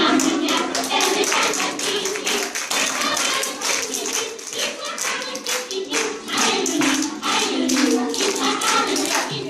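Many people clapping, with music and voices going on underneath.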